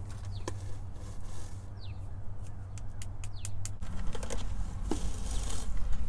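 Dryer-vent cleaning brush on a flexible rod being worked inside a dryer vent duct: irregular scrapes, clicks and rattles over a steady low hum.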